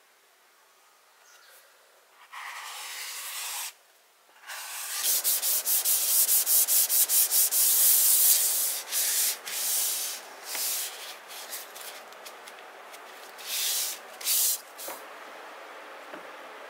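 A cleaning wipe rubbed hard back and forth across an iPad Pro's screen, making a scratchy rubbing sound. The strokes come fast, about three to four a second, then slow into separate, uneven strokes.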